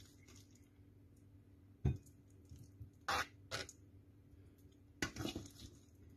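Serving utensils scooping a mayonnaise-dressed salad out of a stainless-steel mixing bowl onto a plate: a low knock about two seconds in, then short scraping and squishing sounds twice around three seconds in and again around five seconds in.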